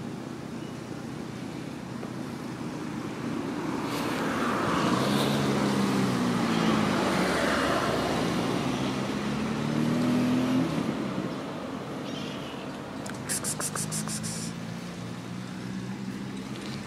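A motor vehicle passing close by, its engine and road noise swelling over several seconds as the engine note dips and then rises, then fading back to a steady traffic background. A few short clicks near the end.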